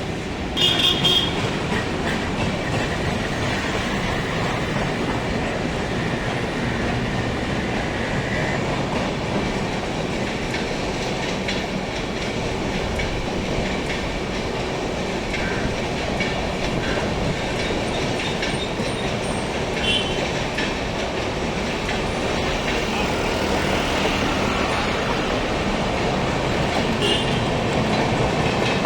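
Coaches of a departing express passenger train rolling past with a steady rumble, wheels clattering over rail joints. A short high squeal comes about a second in, and a thin high wheel squeal carries on for several seconds after it.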